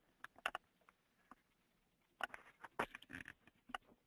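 Faint, scattered clicks and rustles on a conference-call line, a few close together past the middle, with near silence between them.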